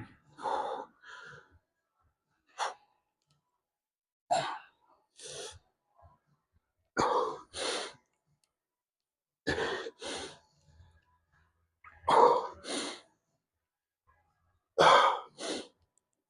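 A man breathing hard from exertion during a set of curls. Sharp, forceful breaths come in short pairs about every two and a half seconds, in time with the reps.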